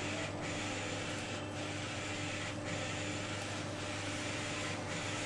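LED UV flatbed printer running, its print-head carriage shuttling across the bed with a steady whirring hum that dips briefly about once a second.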